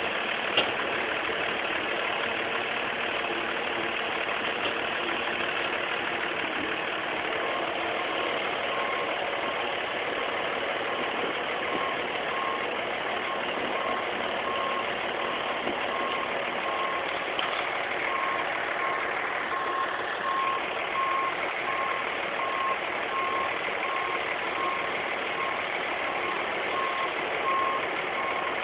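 Kobelco excavator's diesel engine running steadily under work. About a quarter of the way in, a warning beeper starts sounding repeated single-pitch beeps.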